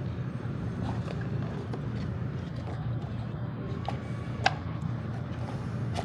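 Light clicks and taps from handling a blind box and its packaging, with one sharper click about four and a half seconds in, over a steady low background hum.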